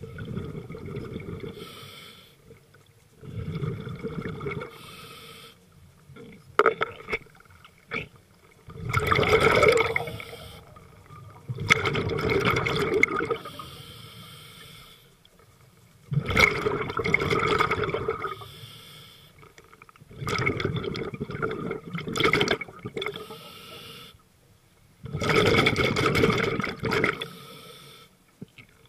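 Scuba regulator breathing underwater: a gurgling rush of exhaust bubbles on each exhale, about every three to four seconds, with a fainter hiss of the regulator on the inhales between.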